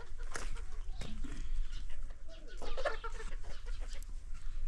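Domestic hens clucking at intervals, mixed with short scratchy clicks and rustles.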